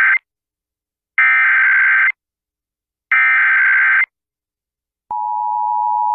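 Emergency Alert System SAME header data tones: the tail of one burst, then two more one-second bursts of rapid warbling data about a second apart, encoding a Child Abduction Emergency (Amber Alert) header. About five seconds in, the steady two-tone EAS attention signal (853 and 960 Hz together) starts and holds.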